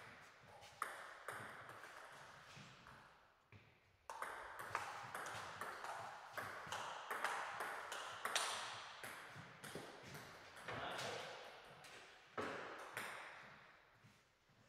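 Table tennis ball being played: a few single clicks of the ball early on, then from about four seconds in a long rally of quick, sharp clicks as the ball strikes bats and table, ringing in the hall.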